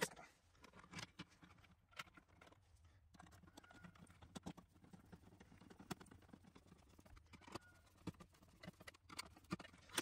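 Faint, scattered clicks and light taps of a screwdriver working on a plastic weatherproof outdoor outlet cover and box, roughly one every second or so.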